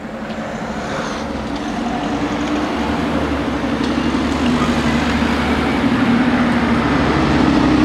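Road traffic over the level crossing: car engines and tyres passing close, with a steady engine hum that grows louder.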